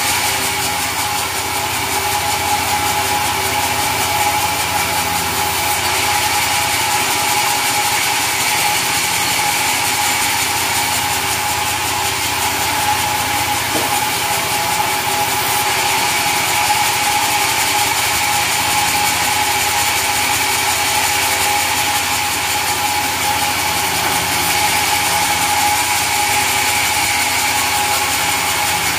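Sawmill saw and its drive running steadily: a loud, constant machine whine with a fixed pitch and an even hum beneath it.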